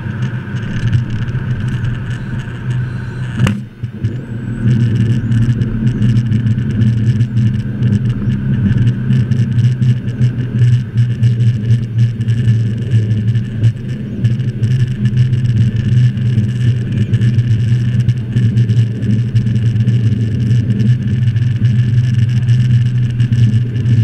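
Cockpit noise of a Learjet 35A rolling out after touchdown: its Garrett TFE731 turbofans and the wheels running steady on the runway, with many small knocks and rattles. The noise drops briefly about three and a half seconds in, then comes back louder and stays that way.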